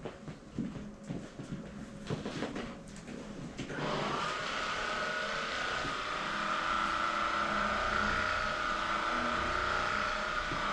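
Quiet shuffling, then about four seconds in a small electric motor starts and runs steadily with a high whine.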